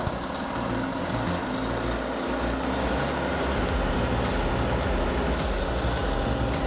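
Heavy logging truck's engine running steadily under load, with faint repeated rattles over it.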